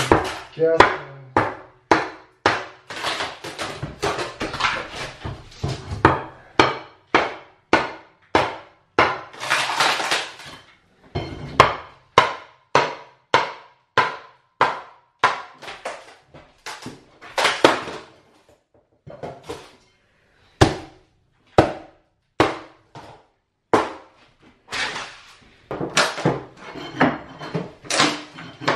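Repeated sharp strikes of a hammer or pry bar on wood, often one or two a second with a few seconds' lull about two-thirds through, as thin plywood underlayment nailed down with small nails is pried up off old floorboards.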